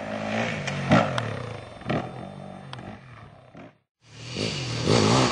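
Yamaha WR450F's single-cylinder four-stroke engine revving up and down as the dirt bike is ridden off road. The sound fades, cuts out completely for a moment about four seconds in, then comes back louder.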